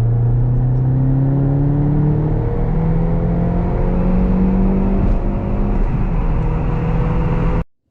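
Turbocharged four-cylinder engine of a 2011 Mini R56 accelerating hard under load in third gear, heard from inside the car. Its note rises steadily in pitch for about five seconds, then holds near the top. The sound cuts off suddenly near the end.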